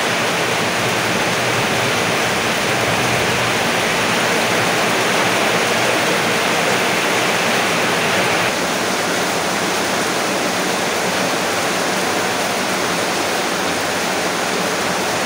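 Heavy rain pouring down steadily, a dense even hiss that softens slightly about eight and a half seconds in.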